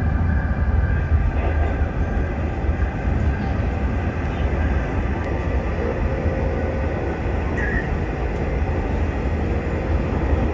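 Express passenger train running at speed, heard from inside the carriage: a steady low rumble of wheels on rails.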